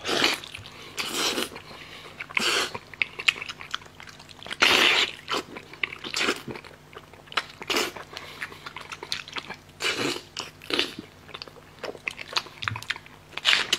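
Close-miked biting, tearing and chewing on a braised pig's trotter, in irregular bursts, the loudest a little under five seconds in.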